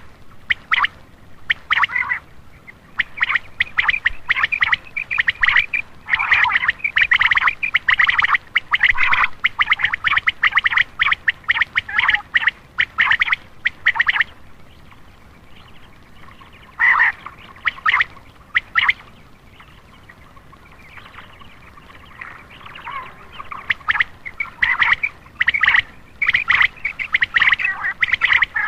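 Common quail calling in long runs of rapid, harsh, rasping notes, broken by short pauses. This is a quail call used to attract male quail.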